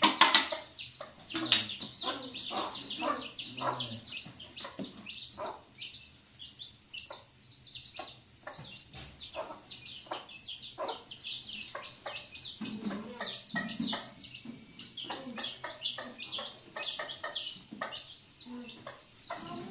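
Chickens clucking, with a dense, continuous run of short high chirps several times a second.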